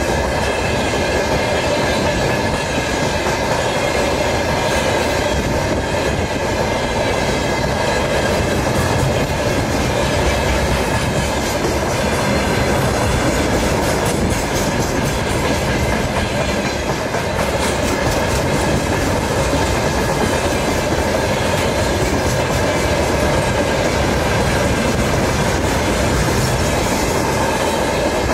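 A train running steadily on rails: a continuous, even rumble and rattle.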